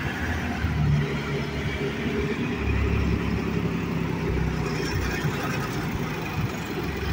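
Forklift engine running with a steady low rumble as it moves a load.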